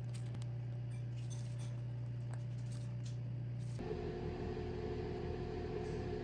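A steady low hum with a few faint clicks, which about four seconds in gives way to the steady whirring hum of a convection oven's fan and motor running.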